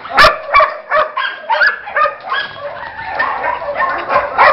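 Dogs barking and yipping in quick, overlapping succession, with a sharp click just after the start.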